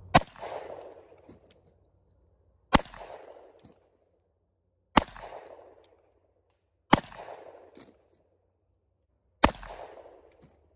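Revolver firing cowboy-action rounds: five single shots, about two to two and a half seconds apart, each followed by a short echo that dies away.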